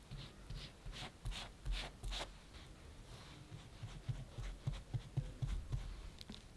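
Silicone pastry brush stroking and dabbing cocoa syrup onto a chocolate sponge sheet, a quick run of soft brushing swishes. These are followed, about four seconds in, by a few soft low knocks.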